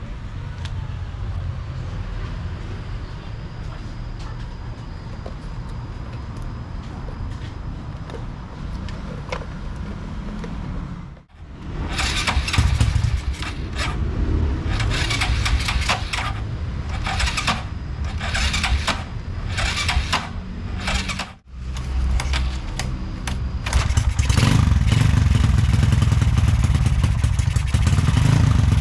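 Single-cylinder four-stroke engine of a Honda Supra X motorcycle, bored up to 185cc, idling steadily, then blipped in repeated short throttle revs and finally held at a higher, louder run, with two sudden brief dropouts where the recording cuts. The engine is being run to check a carburettor jet and needle setting.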